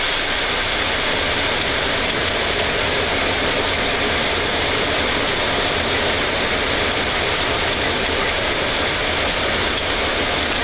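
Boeing 747-8's GEnx-2B turbofan engines in reverse thrust on the landing roll: a steady, even rush of noise that does not change.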